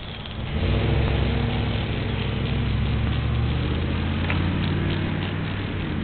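An engine running steadily with a low hum, coming in loudly about half a second in.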